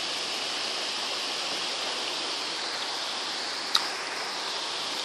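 Heavy rain pouring steadily onto the trees in a thunderstorm, an even rushing hiss. A single sharp tick sounds about three-quarters of the way through.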